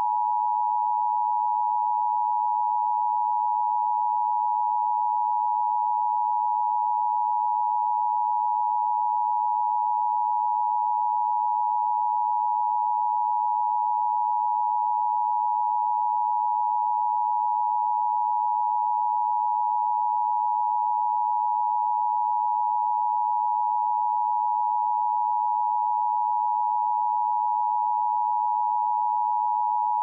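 Synthetic dual-tone test signal: steady electronic sine tones close together near 1 kHz, held unchanged at a constant level.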